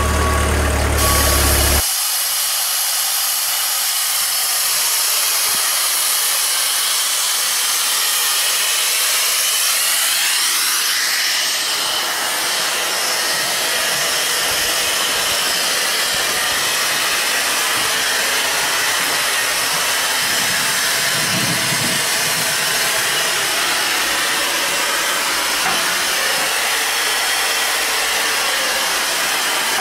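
Steady steam hiss on the footplate of a Hudswell Clarke steam locomotive. In the first two seconds, before it, a telehandler's engine runs with its reversing beeper sounding.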